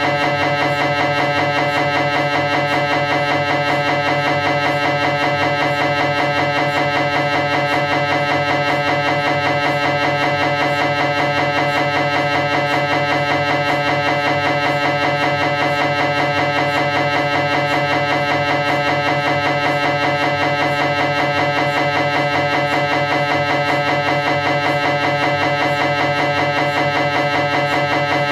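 Philips 1.5 T MRI scanner's gradient coils running a T2-weighted transverse (axial) cervical spine sequence: a loud, steady, rapid knocking with a buzzing tone that repeats evenly and does not change.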